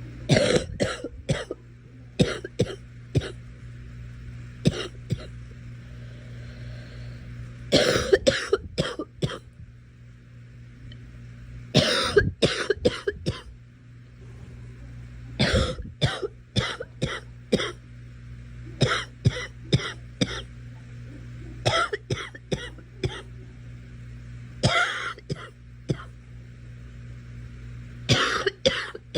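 A girl coughing in about ten short fits, each of two to five sharp coughs, a few seconds apart, over a steady low hum.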